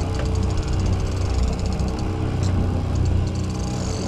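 Boat engine running steadily at trolling speed, with a fast, even ticking of a fishing reel over it that stops about three seconds in.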